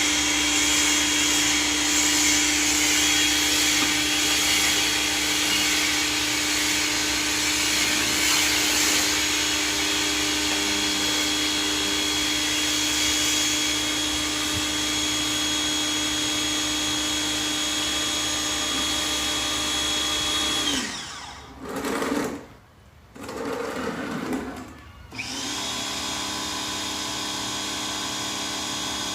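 Ryobi 1600 PSI electric pressure washer running with a steady motor hum and water spray hiss. About 21 seconds in the motor winds down and stops, starts briefly and stops again, then starts up once more and runs steadily, a little quieter, to the end.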